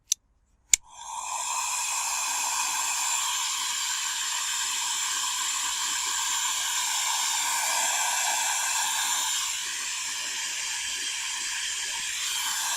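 Two clicks of a heat gun being switched on, then its fan and air blowing with a steady hiss while it shrinks heat-shrink tubing over a cable joint; the hiss drops slightly about three-quarters of the way through.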